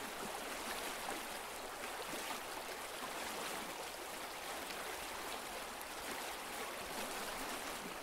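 Flowing river water: a steady, even rush of running water.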